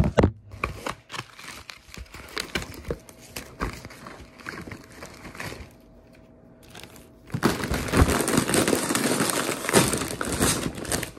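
Packaging crinkling and rustling as it is handled: scattered light crackles and taps at first, then a sustained stretch of loud crinkling from about seven seconds in.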